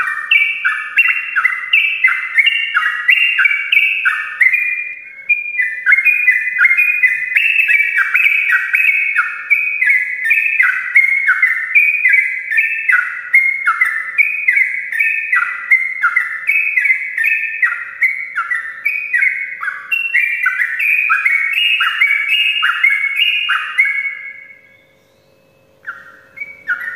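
Yellow-vented bulbul (trucukan) singing its long, unbroken chattering song ('ropel') of quick falling notes. There is a short break about five seconds in, and near the end it stops for a couple of seconds before starting again.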